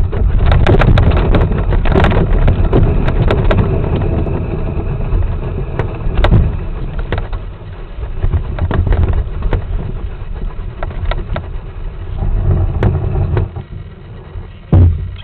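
A dense, muffled low rumble heard from inside a model glider's canopy, with scattered sharp taps of rain and handling on the canopy. It eases off near the end, where there is one loud knock.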